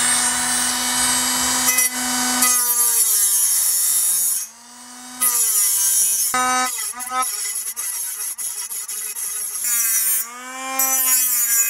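Cordless Dremel 8220 rotary tool with a cut-off wheel grinding down the lip of a rivnut in a bicycle frame. The motor's high whine dips in pitch each time the wheel bites the metal, with a harsh grinding hiss over the cuts, in several short bouts.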